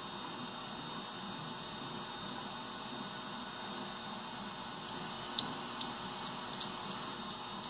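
Steady electrical hum and hiss with a thin high whine throughout. Over the second half come a few faint, light clicks of a small metal pin being worked into a plastic part by hand, the sharpest about two thirds of the way through.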